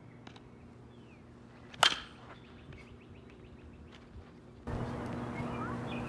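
A baseball bat hits a ball once about two seconds in: a single sharp crack with a brief ring. Faint bird chirps come and go, and the steady outdoor background gets louder near the end.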